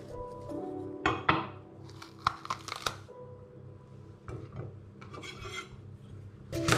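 Chef's knife slicing through red peppers and scraping on a wooden cutting board, with sharp cuts and rubbing scrapes in two clusters, the first about a second in and the second past the middle.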